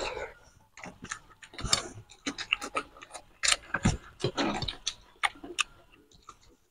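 Eating mutton curry and rice by hand at close range: chewing and lip smacking, with irregular wet clicks and smacks and fingers squishing rice into the curry.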